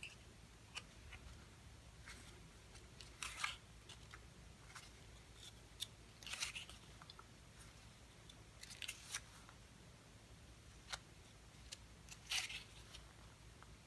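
Faint paper rustles and crisp little snaps as a miniature book is opened and its cover and pages are bent back by hand, in short bursts a few seconds apart.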